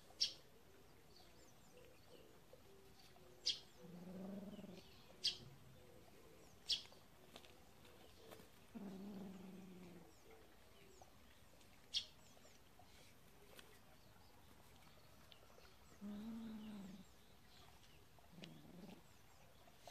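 Cats calling low and drawn-out, about a second each, four times, while short high squeaks come now and then between the calls.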